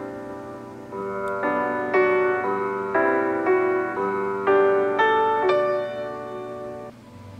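Soft piano music played through the MacBook Air's built-in speakers as a speaker test, notes and chords struck about twice a second, fading out near the end.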